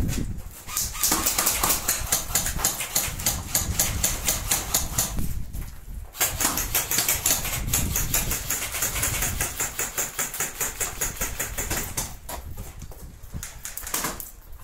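Airsoft guns firing long full-automatic bursts: rapid, even cracks of shots, one long burst from about a second in until about five seconds, a second from about six seconds until about twelve, then a quieter run near the end.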